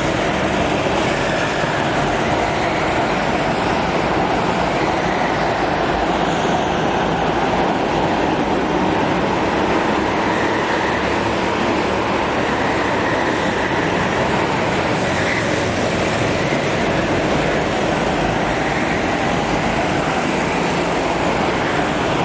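Several go-kart engines running together as the karts race round the track, a continuous dense drone that hardly rises or falls, heard inside a large hall.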